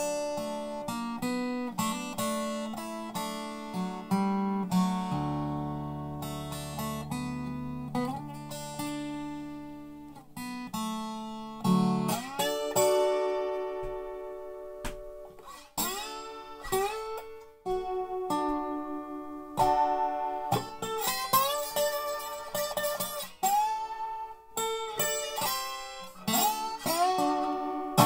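Resonator guitar played bottleneck-style with a glass slide in a slow blues. Picked notes ring out, and several slide up into pitch.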